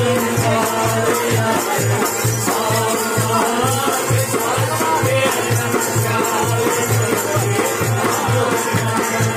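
Kashmiri folk wedding ensemble playing: harmonium and a string instrument carry the tune over a steady beat from a tumbaknari goblet drum and a small hand drum, about two to three strokes a second.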